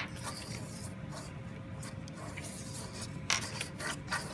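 Pen tip scratching across paper as a plastic strip drawing compass is swung around its pivot pin to draw a circle, with the plastic rubbing on the sheet. A short, louder scrape comes a little over three seconds in.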